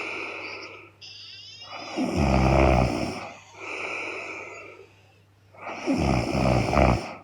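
A woman snoring heavily in her sleep: two loud snores about four seconds apart, with softer, breathy breaths between them.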